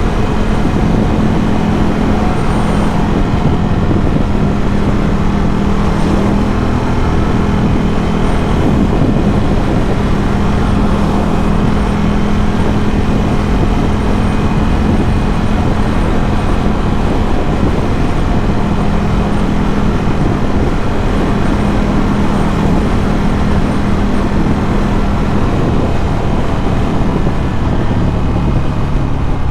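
Ducati Scrambler 1100's air-cooled L-twin through a Termignoni exhaust, heard on the move at a steady cruise. The engine note holds steady and drops slightly near the end as the revs ease off.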